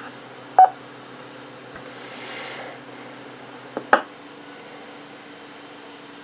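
Two-metre amateur radio receiver hissing with a faint steady hum in the gap between transmissions on the repeater, with a few short clicks about half a second in and again about four seconds in.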